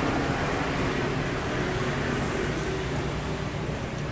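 Steady background hum and hiss of a workshop room, with no distinct knocks.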